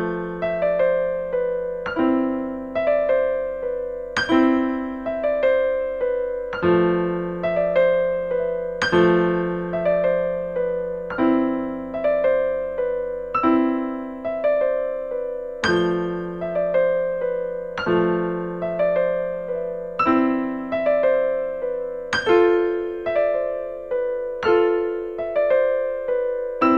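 Solo piano music: slow broken chords, each note struck and left to fade, about two notes a second over a low note every couple of seconds.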